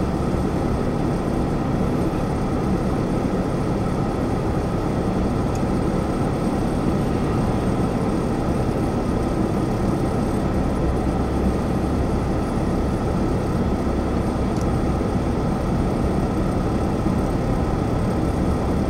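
Steady car engine and tyre noise heard from inside the cabin while driving along a road.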